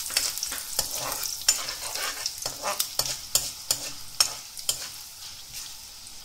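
Urad dal and chana dal frying in hot oil in a kadai, with a steady sizzle, while a spatula stirs them and scrapes and clicks against the pan. This is the tempering stage, with the dals being fried until light brown. The sizzle and the stirring grow quieter in the last second or two.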